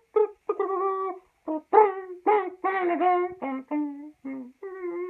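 A person's voice imitating a phone ringtone melody by mouth: a run of about a dozen short sung notes that jump up and down in pitch, with brief gaps between them.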